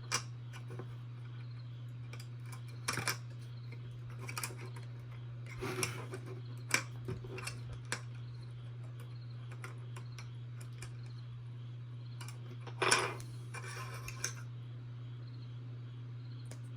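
Small plastic robot-kit parts clicking and knocking as they are handled and fitted together, a scattered series of light taps with louder clatters about three, six and thirteen seconds in, over a steady low hum.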